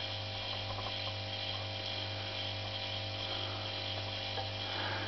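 Hermetic refrigeration compressor, fitted as the pump of a small air compressor, running with a steady low electric hum.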